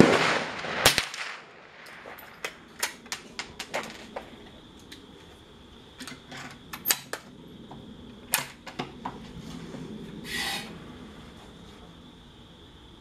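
.22 gunshot: a sharp crack with a short ringing tail, and a second crack just under a second later. Scattered lighter clicks and knocks follow.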